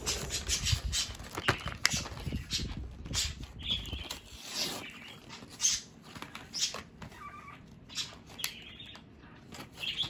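Crackling, clicking and rustling of a plastic blister pack and its cardboard backing being pulled open by hand. A few short chirps from pet birds come through between the crackles.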